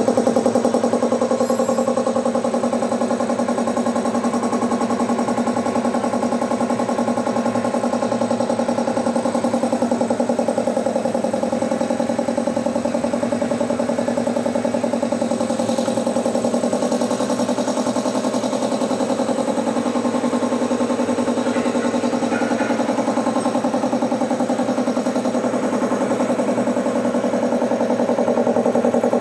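Vespa 2 hp belt-driven piston air compressor running steadily under test, its electric motor driving the pump and pumping air into the tank.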